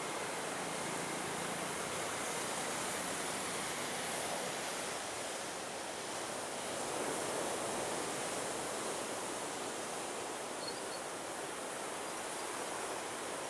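Steady rushing noise, even and unbroken, with no distinct engine note or knocks.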